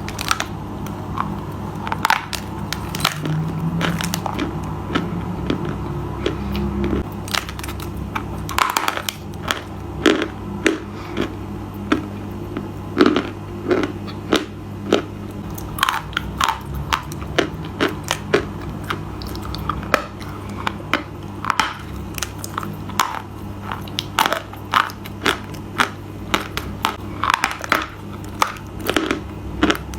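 Close-up crunching as something brittle is bitten and chewed, a rapid irregular run of sharp crackling snaps that grows denser about a third of the way in, over a steady low hum.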